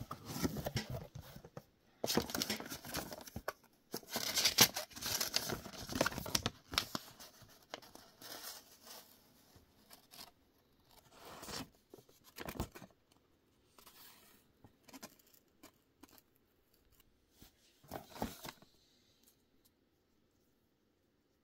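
Cardboard box and paper packing being handled: rustling, crinkling and tearing paper in irregular bursts, loudest over the first several seconds, then sparser and dying away near the end.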